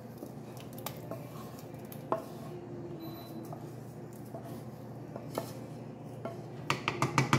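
Spatula scraping thick ground masala paste out of a pan into a pressure-cooker pot of dal, with a few scattered clinks, then a quick run of about six knocks of pan and spatula against the pot rim near the end.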